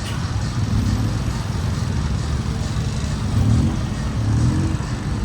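Busy street ambience dominated by the low running of motor vehicle engines, with an engine note rising in pitch about three and a half seconds in.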